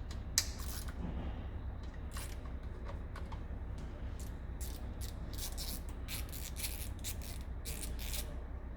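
Metal hand tools clicking and scraping on an engine as the valve cover on the right cylinder bank is loosened: short irregular clicks, coming thickest in a run of quick strokes near the end.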